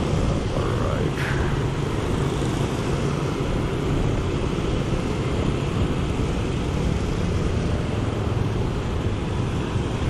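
Steady road noise from riding a motorbike through wet city traffic: the bike's engine running, with wind and tyre noise on the wet road and the surrounding motorbikes. A brief hiss rises above it about a second in.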